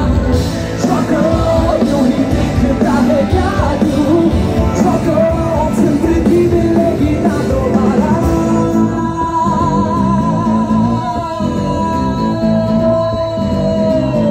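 Live rock band playing loudly through a stage PA, with a singer. From about eight seconds in, the singer holds a long note with vibrato.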